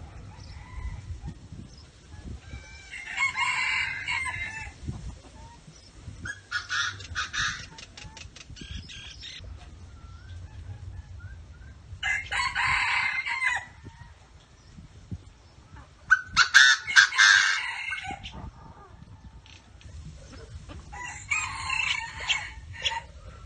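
Rooster crowing five times, each call lasting a second or two, several seconds apart.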